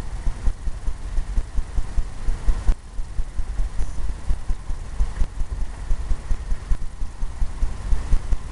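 Paintbrush working white oil paint into the sky of a stretched canvas for clouds. The strokes make a quick, uneven run of low thumps, about three or four a second.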